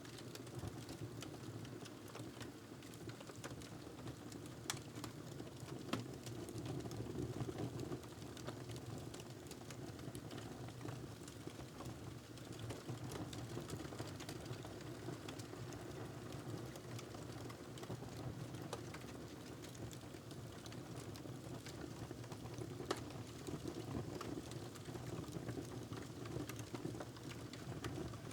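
Wood fire in a fireplace crackling steadily, with scattered sharp pops over a low, even rush.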